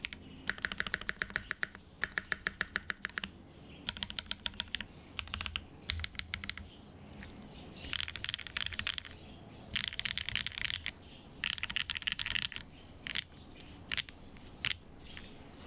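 Custom 7V mechanical keyboard typed on, with lubed AEBoards Raeds switches on an aluminium plate under GMK keycaps: fast runs of key clicks lasting about a second each, separated by short pauses, then a few single strokes near the end.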